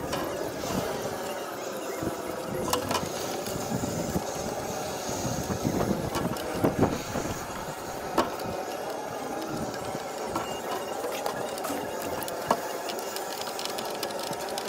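Steady drone of a small engine-powered garden machine running in the background, with a few sharp light clicks and taps from hands handling wires and crimp connectors.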